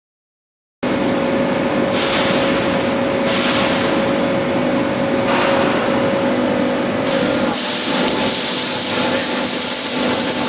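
CNC tube bending machine running, cutting in about a second in: a steady hum with a constant tone under it, and about five sudden bursts of air hiss, the later ones running into a steadier hiss near the end.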